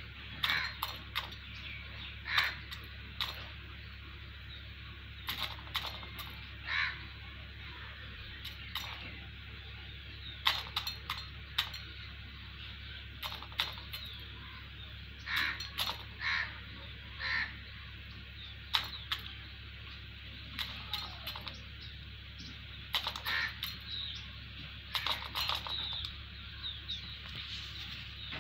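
Crows cawing repeatedly, short harsh calls scattered throughout, mixed with many sharp clicks and taps over a steady low hum.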